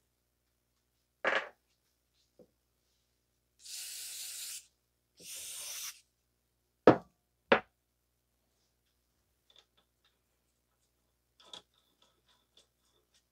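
A knock, then two short hissing sprays from an aerosol can about four and five and a half seconds in, followed by two sharp knocks, the loudest sounds. Near the end, faint small metallic clicks as the new axle nut is started onto the CV axle's cleaned-up threads.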